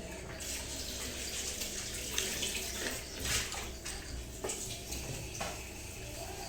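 Eating sounds: wet, slurpy noise with a few sharp smacks or clicks spread through, typical of eating boiled chicken and its broth.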